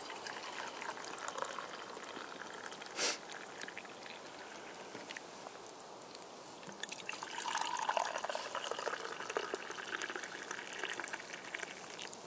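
Tea being poured from a metal kettle into camping mugs, a stream of liquid splashing into a steel mug and then into an enamel mug. The second pour, starting about seven seconds in, is louder. There is one short knock about three seconds in.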